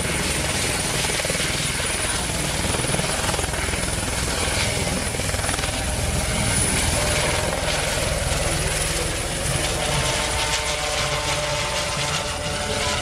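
Light helicopter with a ducted Fenestron tail rotor running at full power as it lifts off and climbs: a steady low rotor beat under a thin, high turbine whine.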